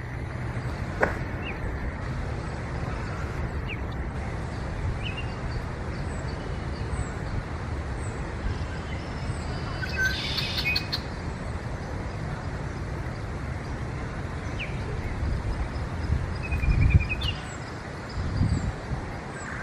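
Wild birds chirping and calling in a marsh: scattered short chirps, a brief burst of song about halfway and a short falling trill later, over a steady low rumble, with a couple of dull thumps near the end.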